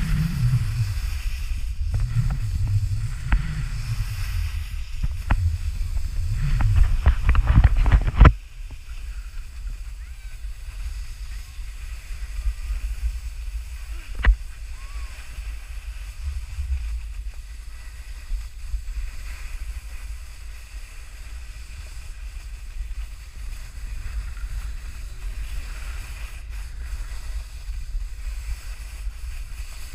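Wind rumbling and buffeting on an action camera's microphone while snowboarding downhill, with the rush of the board over snow. It is loud and gusty at first, drops suddenly to a quieter steady rumble about eight seconds in, and there is one sharp click a few seconds later.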